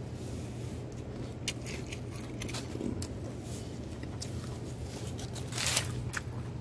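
Paper and foil fast-food wrappers crinkling and rustling as they are handled: scattered faint crackles, with a louder rustle near the end, over a steady low hum.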